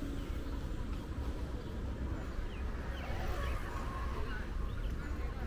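City park ambience: a steady low rumble with faint distant voices, and a few short bird chirps about halfway through.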